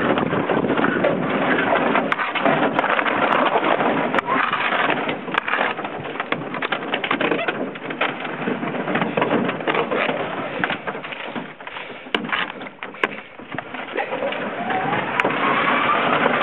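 Canoe hull grinding and crunching over soft lake ice as it is pushed along, with many sharp cracks and crackles; it eases off for a few seconds past the middle, then picks up again.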